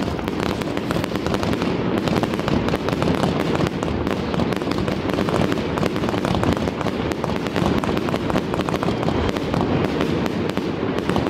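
Aerial fireworks bursting overhead: a dense, unbroken barrage of many overlapping bangs and crackles.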